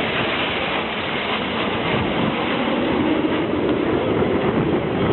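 Jet engine noise from Patrouille de France Alpha Jets flying past: a steady rushing sound that swells slightly in the second half.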